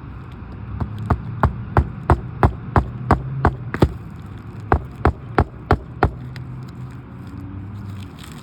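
A hammer striking in quick, even blows, about three a second: around ten blows, a short pause, then five more.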